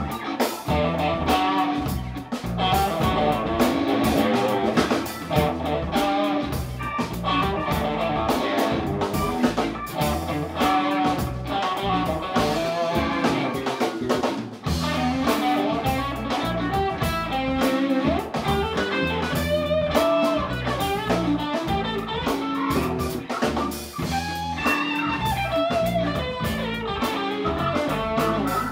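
Live band playing electric guitars, electric bass and a drum kit to a steady beat.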